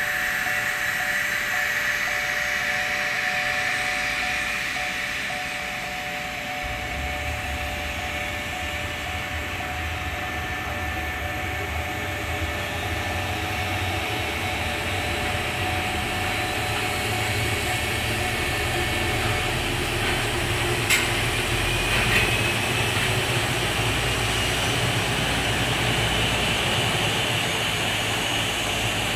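Steady jet whine from a Boeing 737-800 being pushed back on the apron. A low rumble joins in about a quarter of the way through, and there are two brief clicks about two-thirds of the way in.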